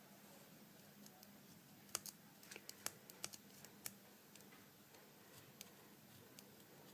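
Faint, scattered small clicks and ticks of a bare iPhone frame and small repair tools being handled, with a cluster of about a dozen clicks two to four seconds in, over near-silent room tone.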